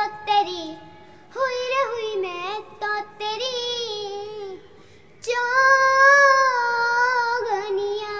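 A young girl singing a Hindi Christian worship song unaccompanied, in three phrases with short pauses between them; the last phrase is the loudest, with a long held note.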